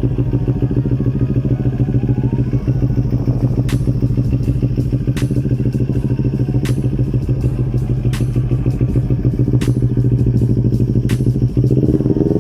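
CFMOTO NK400/GT400 parallel-twin engine idling steadily through an aftermarket exhaust muffler, with a sharp click about every one and a half seconds.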